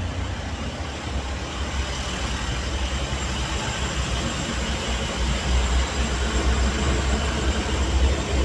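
Truck engine running slowly and idling, a steady low rumble heard from inside the cab.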